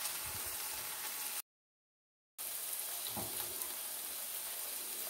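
Food sizzling in a pan: paneer cubes frying in oil with a steady sizzle. About one and a half seconds in, the sound cuts out completely for about a second, then onion and tomato masala sizzles steadily in the pan.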